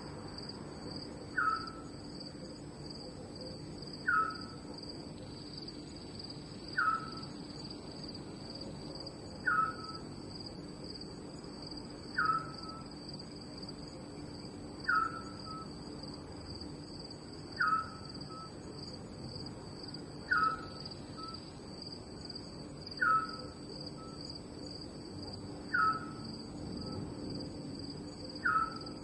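Night ambience of crickets trilling steadily and high, with a short falling call, louder than the crickets, repeating about every two and a half seconds.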